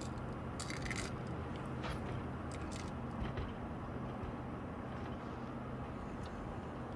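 Steady low drone of a car being driven, engine and road noise, with scattered short clicks and crunches in the first few seconds.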